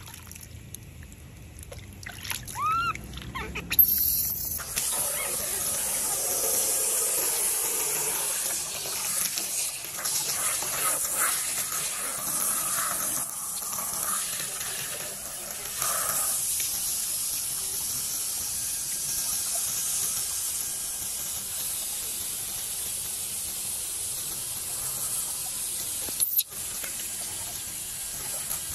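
Water spraying from a hose over a baby monkey being washed in a plastic basin: a steady hiss that starts about four seconds in, with splashing as hands scrub the wet fur. A few short high squeaks just before the spray starts, and a single sharp click late on.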